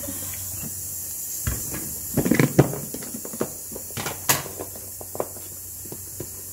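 Scattered light knocks and clicks of kitchen handling around a pot and an olive-oil bottle. There is a small cluster a little over two seconds in and one sharp click just after four seconds.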